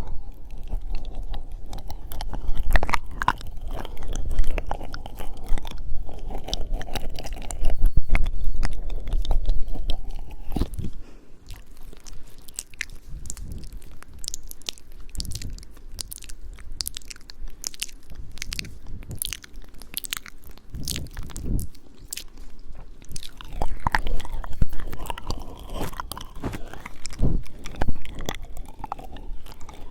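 ASMR mouth sounds close to the microphone, meant as eating and licking an ear: wet nibbling and chewing noises made of many quick clicks. It is fuller and louder for the first third, softer through the middle, and louder again near the end.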